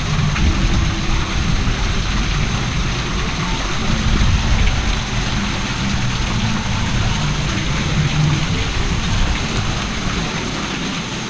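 Steady hiss of spraying, splashing water, with an uneven low rumble underneath.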